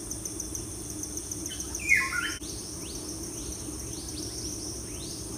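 Crickets chirping steadily in a fast, even pulse, with a short bird chirp about two seconds in and repeated short rising chirps after it.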